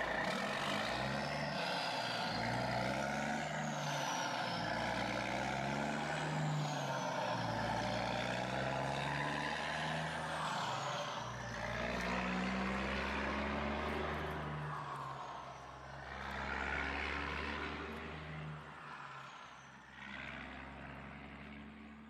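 Remote-control toy wheel loader running, with a truck-like engine sound whose pitch rises and falls. It dies down over the last few seconds.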